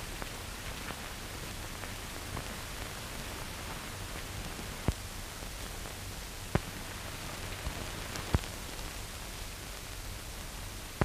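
Steady hiss and low hum of an old 1930s optical film soundtrack with no dialogue or music, broken by a few sharp clicks and pops from the worn print.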